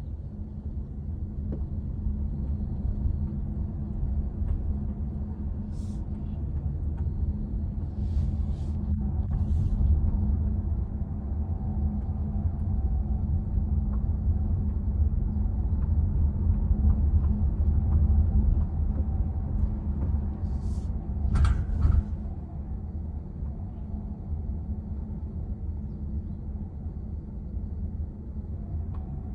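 Honda ZR-V cabin noise while driving: a steady low rumble, with a few short high hissing or squeaking sounds about six seconds in, twice around eight to ten seconds, and again near twenty-one seconds with a sharp click. The owner posted it as an abnormal noise from the car.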